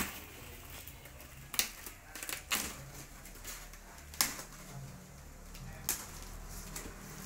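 Cardboard shipping box being torn open by hand: about five sharp cracks and rips of cardboard and packing tape, a second or so apart, with smaller rustles between.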